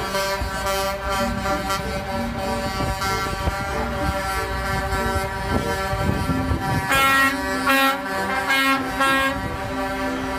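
Air horns on a convoy of cement mixer trucks sounding over the rumble of the trucks' engines, with a run of short, louder horn blasts about seven to nine seconds in.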